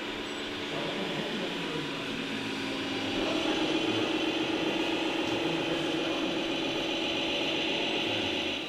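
Radio-controlled scale model machine running with a steady mechanical whine, growing louder about three seconds in.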